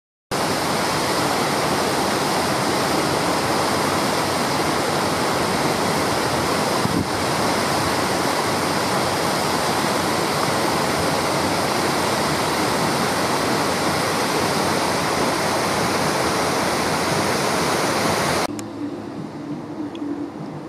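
Water pouring over a small concrete weir into a river: a loud, steady rush of falling water. It cuts off abruptly about 18 seconds in, giving way to a much quieter low hum.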